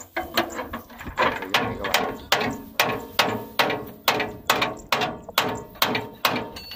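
A steel pipe hammered against a metal part on the auger shaft inside a combine harvester header's housing: steady metal-on-metal blows, about two to three a second, each with a short ring.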